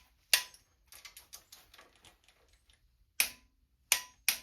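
Sharp metallic clicks and clinks of hand tools working on the engine's intake manifold bolts. One loud click comes early and three more come close together near the end, with light ticking in between.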